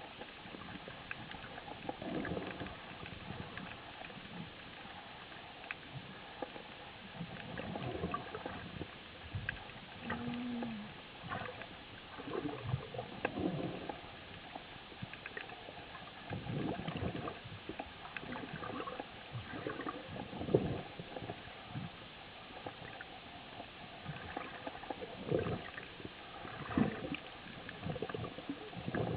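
Muffled underwater sound heard through a camera housing: irregular gurgles, swishes and low knocks of a freediver moving and handling a speared fish and gear, over a faint steady hiss.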